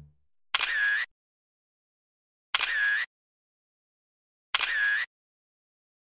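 Camera shutter click sound effect, played three times two seconds apart. Each is an identical short snap, about half a second long, with dead silence between them.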